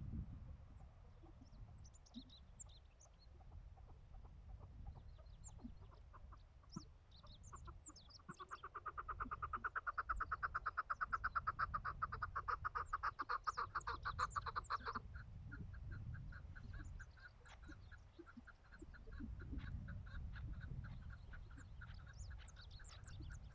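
Chukar partridge calling: a fast run of clucking notes that builds, is loudest for several seconds, breaks off abruptly about halfway through, then carries on more softly. Small birds chirp and wind rumbles underneath.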